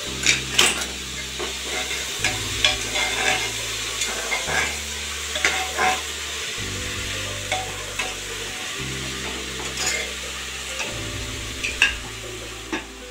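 Chopped bottle gourd (lauki) sizzling in oil in an open metal pressure cooker, while a metal spatula stirs and scrapes it with frequent sharp clinks against the pot.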